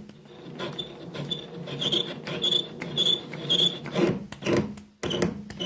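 Lathe cutting tool taking a full-width cut on a cast iron pulley while the lathe is turned by hand: an uneven scraping, rasping sound in strokes, with short high squeaks about twice a second in the second half.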